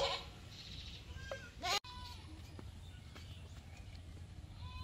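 Short animal calls, the loudest at the very start and a few more about one and a half seconds in and near the end, over a low steady rumble. A sharp click comes about two seconds in.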